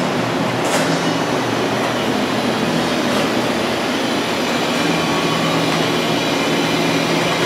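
Mazak VCU 500A five-axis CNC vertical machining center running through a machining cycle: steady machine noise with a faint low hum, and a short hiss just under a second in.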